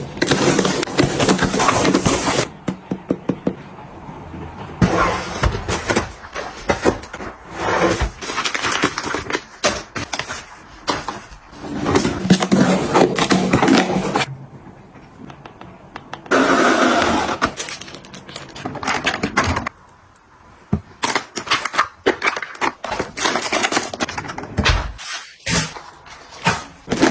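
Close-up handling sounds of unboxing and restocking: packaging rustling, and items and containers being opened, set down and clicked into place, giving many sharp clicks and knocks between stretches of rustling.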